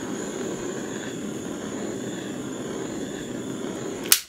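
A steady whooshing, motor-like noise with a faint high whine on top, cut off abruptly by a sharp click about four seconds in.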